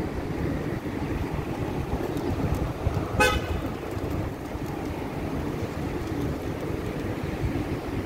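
Steady road traffic noise, with one short car horn toot about three seconds in.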